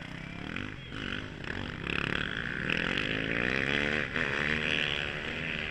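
Several racing motorcycles on ice, their engines revving up and down together as the pack comes through the corner, getting louder through the middle of the clip.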